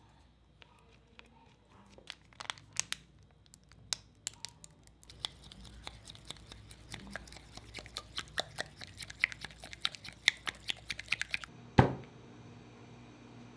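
Close, crisp crunching and crackling of fried snacks being bitten and chewed. A few scattered crackles are followed, about five seconds in, by a dense run of crackles lasting about six seconds, which ends in one louder click.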